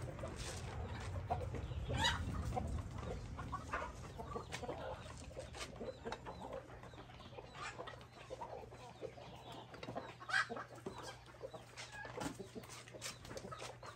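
Domestic hens clucking: a scattered run of short calls, one louder about ten seconds in.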